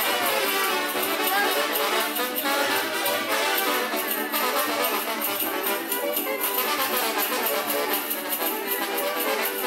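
Brass band playing dance music for the Kurpites dance, with the jingling of the dancers' leg bells.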